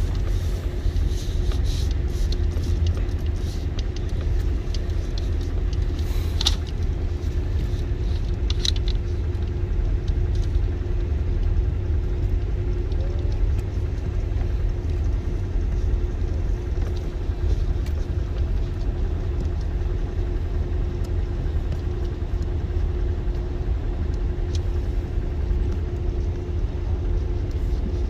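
Steady low rumble with a constant hum, and a few light clicks of handling.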